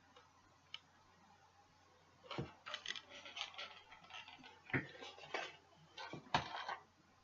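Faint handling noises of unpacking plastic puzzle cubes: light clicks, knocks and crinkles, starting about two seconds in and coming every second or so.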